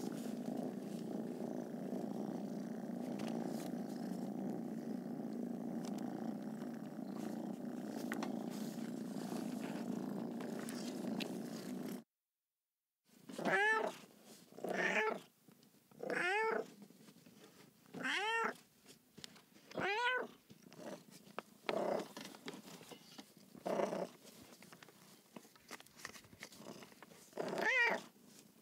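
Domestic cat purring steadily for about twelve seconds, then after a short break a string of about eight meows, each rising and falling in pitch, a second or two apart, the last few fainter.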